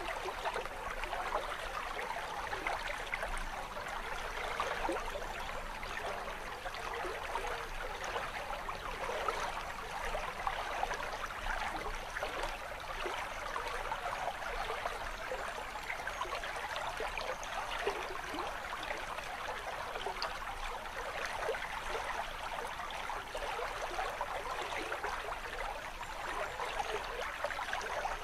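Water babbling steadily over stones in a small brook, falling from a spout of stacked flat stones in a little cascade.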